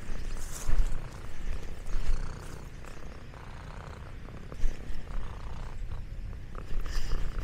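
A domestic cat purring close by, a low rumble that swells and eases, with a few brief rustles over it.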